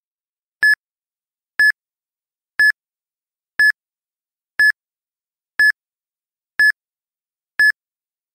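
Countdown timer beeping: eight short, high-pitched beeps, one each second, with silence between, ticking off the seconds left to answer.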